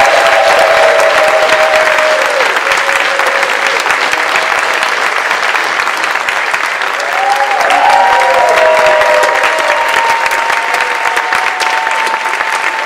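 Theatre audience applauding: dense, sustained clapping, with whoops and cheers over it, strongest around eight seconds in.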